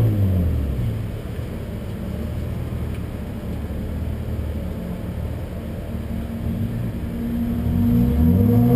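Race car engine idling in the pits: the revs drop at the start, it holds a steady idle, then revs rise near the end as the car is driven off. The engine is running on only 6½ cylinders.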